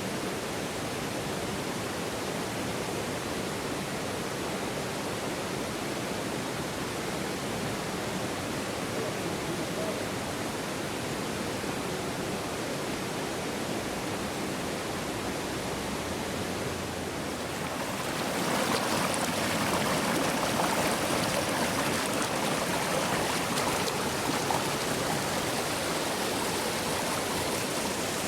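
Little Susitna River flowing with a steady rush of water, growing louder and brighter about two-thirds of the way through.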